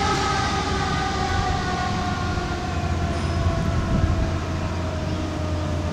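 Fire engine's siren, a long tone sliding slowly down in pitch, over the low rumble of the truck's engine as it drives away.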